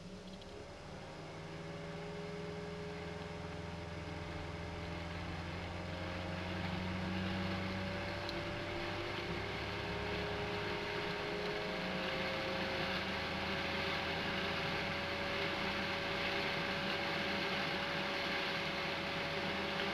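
A 120 mm PC case fan spinning up and then running steadily: a rush of air with a faint humming tone that rises slightly in pitch as it speeds up, growing louder over the first few seconds.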